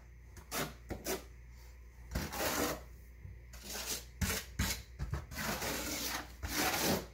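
A quarter-inch square-notch steel trowel scraping thinset mortar across a plywood subfloor, in a series of short, uneven strokes.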